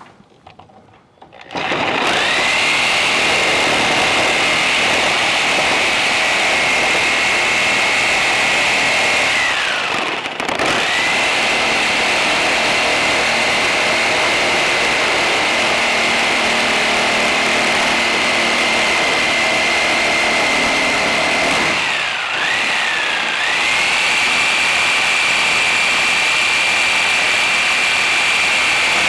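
Handheld electric circular saw running and cutting through wooden siding boards, a loud steady high whine that starts about a second and a half in. The pitch sags briefly twice, about ten seconds in and again about twenty-two seconds in, then comes back up to speed.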